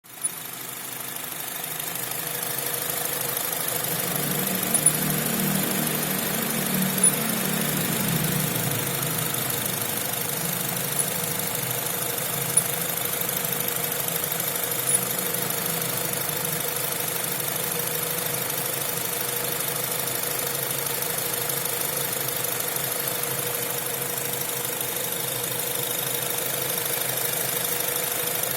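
Honda CR-V engine idling warm, with a steady tone and a few sharp clicks at irregular intervals, mostly in the first half. This is the intermittent 'g, g' abnormal noise that appears once the engine is hot and goes away after it has cooled.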